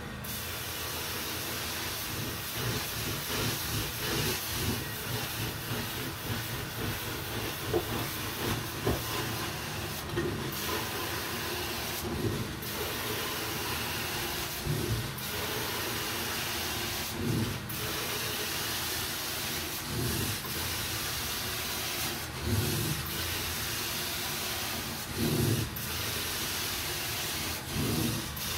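Hot-water carpet extraction wand spraying and sucking water out of the carpet in back-and-forth strokes: a steady hiss with rhythmic rubbing surges, broken by a short gap every two to three seconds in the second half.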